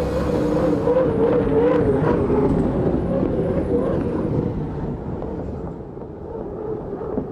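Offshore racing powerboat engines running hard at speed, their wavering drone fading away about five seconds in.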